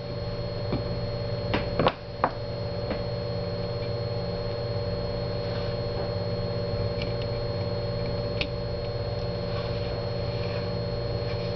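Steady electrical mains hum with a thin high whine over it, and a few faint light clicks, most of them about two seconds in.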